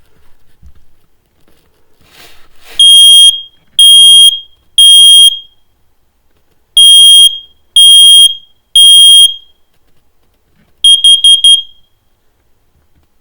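First Alert combination smoke and carbon monoxide alarm sounding its test: three long, loud, high-pitched beeps, a pause, three more, then four short quick beeps near the end. The three-beep groups are the smoke-alarm signal and the four quick beeps the carbon monoxide signal.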